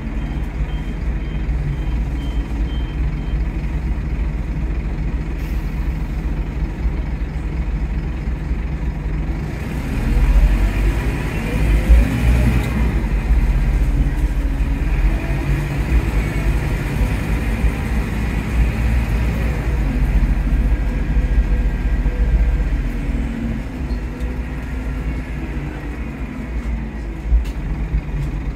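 Scania K230UB OmniLink bus engine and ZF Ecomat automatic gearbox running, heard from inside the saloon as the bus drives, with a low diesel rumble and a whine that rises and falls through the gears. The engine pulls louder about ten seconds in.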